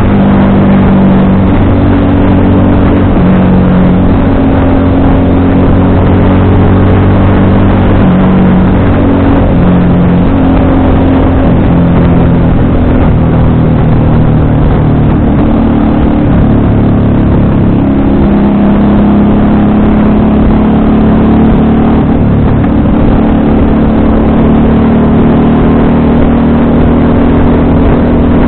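FKM Victorino 250i motorcycle's V-twin engine running under way on the road, loud and continuous, its pitch stepping up and down several times as the revs change. It is heard through a cheap action camera's microphone.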